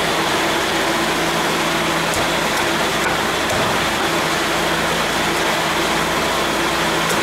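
Steady mechanical whir with a low, even hum, like a ventilation fan running, with a few faint light clicks over it.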